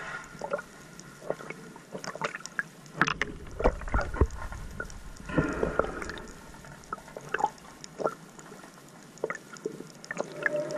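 Water gurgling and sloshing picked up by an underwater camera, with scattered clicks and knocks.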